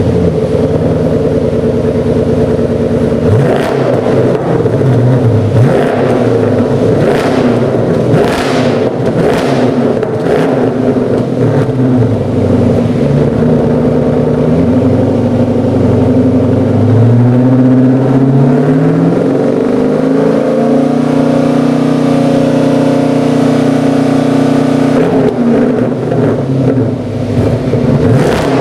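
Exhaust of a 2006 Dodge Charger R/T's 5.7-litre Hemi V8 through an aftermarket GIMMIC dual stainless-steel sport muffler. It idles, gives several quick throttle blips, then the revs climb and are held up for a few seconds before falling back to idle.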